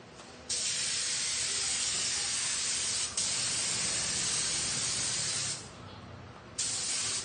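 Compressed-air paint spray gun spraying paint in passes: a steady loud hiss that starts about half a second in, breaks briefly around three seconds, stops for about a second near six seconds, then starts again.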